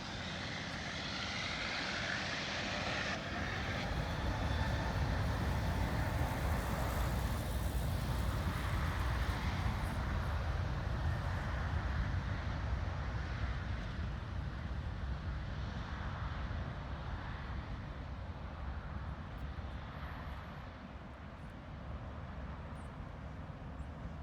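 Airbus A380 jet airliner taking off, its four jet engines at takeoff power: a deep rumble that builds over the first few seconds and slowly fades toward the end as it climbs away.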